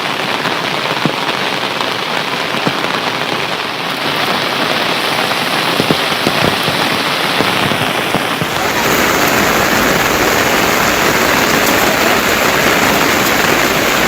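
Heavy monsoon rain falling steadily, a dense hiss with scattered sharp drop hits. A little past halfway it turns fuller and slightly louder.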